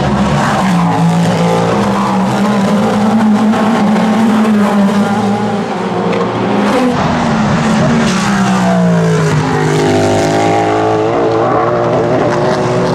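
Cadillac V-Series.R GTP prototype's V8 engine revving hard, its pitch wavering, falling and then climbing again, with tyre squeal, as the car spins donuts.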